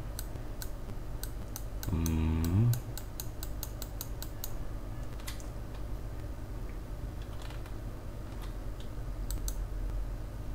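Computer keyboard and mouse clicks: a quick run of them in the first few seconds and a few more near the end, over a steady low hum. About two seconds in, a short voiced hum that dips and rises in pitch is the loudest sound.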